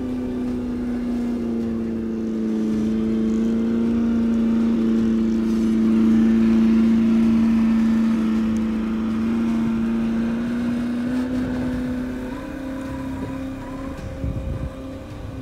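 The electric drive motor and gearbox of a 1/8-scale Double Eagle RC Land Rover Defender, whining at a steady pitch as the truck drives. It grows louder as it passes close by, then fades as it drives away.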